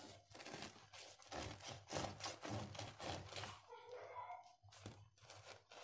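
Bread knife sawing through a loaf of soft homemade bread: quick, repeated crunching strokes through the crust, about three a second.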